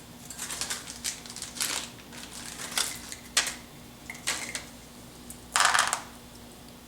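Small splice-kit parts (crimp connectors and heat-shrink tubes) being handled on a bench: irregular clicks and rustles, with one longer, louder rustle about five and a half seconds in.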